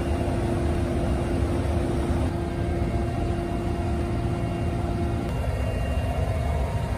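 A helicopter's turbine engines and rotor running steadily, heard from inside the cabin in flight: a constant heavy rumble with a steady whine over it. The whine changes pitch slightly about two seconds in and again about five seconds in.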